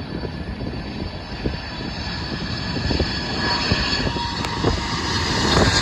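Jet airliner engines running, a deep rumble with crackle and a steady whine that grows louder as the aircraft nears.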